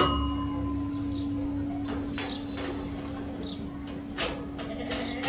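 Totapuri goats moving about a pen. There is one sharp metallic clank with a short ring at the start, then a few light knocks over a steady low hum.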